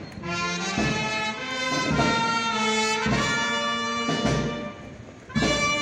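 Processional passion band of brass and drums playing a slow march: held brass chords that change every second or so over regular drum beats, dropping away briefly near the end before the brass comes back in loudly.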